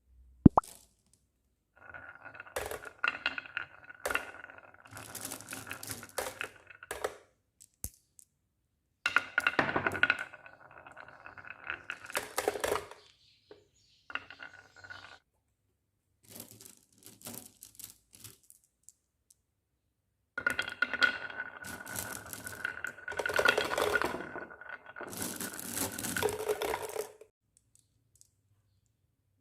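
Glass marbles rolling and clattering down a toy marble run, with sharp clicks as they drop and knock against the track. Several runs follow one another with short pauses between them, the longest and loudest near the end.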